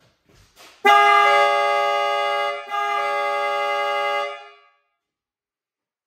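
Harbor Freight two-trumpet air horn sounding together with a Toyota Tacoma's stock electric horn: a loud chord of several steady tones, sounded twice for about two seconds each with only a brief break between. One of the air horns comes in a moment after the others, which the owner puts down to the air pressure building up.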